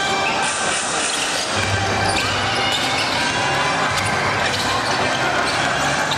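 Basketball bouncing on an indoor court during a game, over a steady din of the hall.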